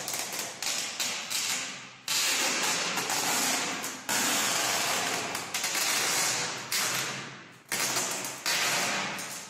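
Adhesive tape being pulled off its roll in a series of long strips, each a loud noisy tear that starts suddenly and fades over a second or two, as it is run around the lid of a styrofoam box to seal it.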